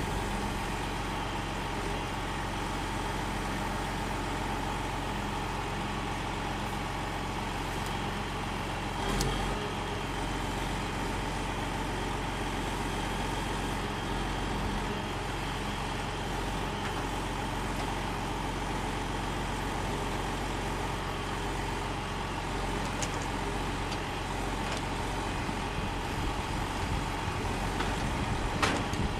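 Log truck's diesel engine running steadily while it drives the knuckleboom loader's hydraulics as the grapple handles white oak logs. A single knock comes about nine seconds in, and a few sharper knocks come near the end.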